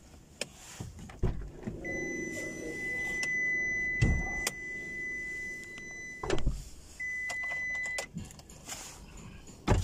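2016 Nissan X-Trail's electric power window motor running with a steady whine for about four seconds, then again briefly near the end. A few clunks come in between.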